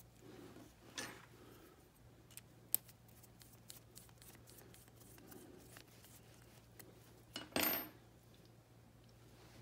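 Faint small metallic clicks and ticks of an Allen key turning a set screw into an aluminium tap follower, with a louder brief rub near the end.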